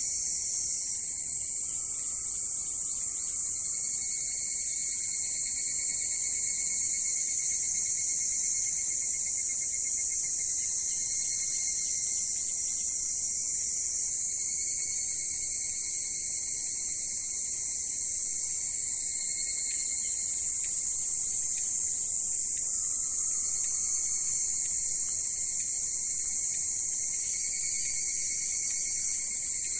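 Insects calling in a steady chorus: a dense high shrill with a lower, pulsing trill running under it.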